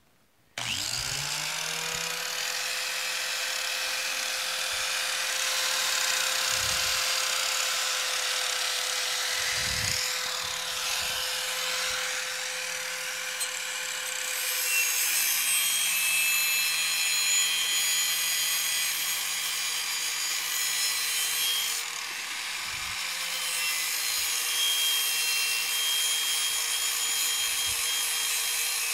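Electric angle grinder switched on, its motor whine rising as it spins up and then holding steady. The disc grinds against the rusty steel underside of a lawn tractor mower deck, the grinding growing louder from about fifteen seconds in.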